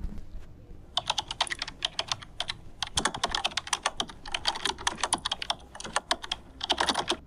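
Typing on a computer keyboard: a fast, irregular run of key clicks that starts about a second in and stops just before the end.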